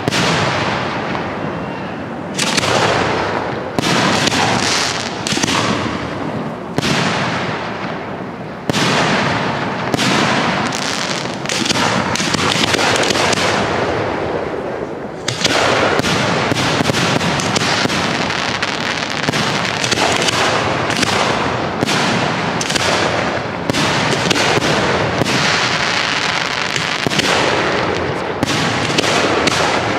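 Aerial fireworks shells bursting overhead in quick succession, sharp booms each trailing off. They come closer and closer together until, from about halfway through, they form an almost unbroken barrage.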